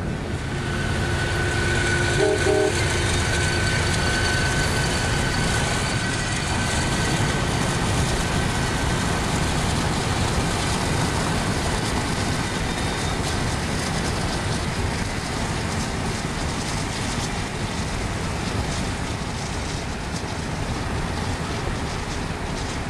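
Amtrak passenger train rolling past, led by a GE P32AC-DM diesel locomotive: a steady rumble of locomotive and coaches, heard from inside a moving car and mixed with its road and wind noise.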